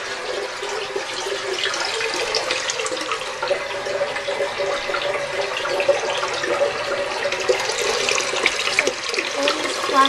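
Water running steadily into an open toilet tank through its Fluidmaster 400A fill valve, a continuous hiss with small splashy crackles.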